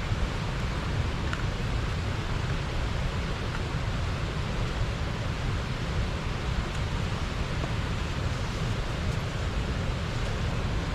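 Steady rush of river water pouring over a small weir, an even noise with a strong low rumble.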